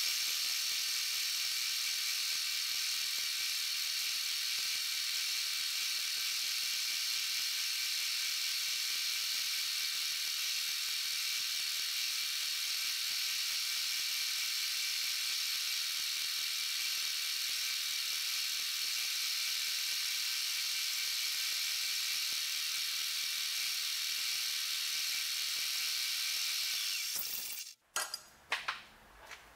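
Mill spindle at 750 RPM driving a 0.343-inch twist drill through 303 stainless steel: a steady high hiss with a faint whine. It cuts off abruptly near the end, followed by a few clicks.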